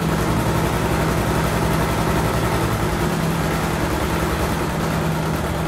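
Domestic electric sewing machine running steadily at speed, stitching a seam through fabric: a constant motor hum with the needle's very fast, even ticking.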